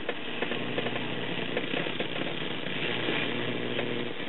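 Static hiss with a steady low hum from the 1965 Magnavox Astro-Sonic console's AM radio, tuned between stations.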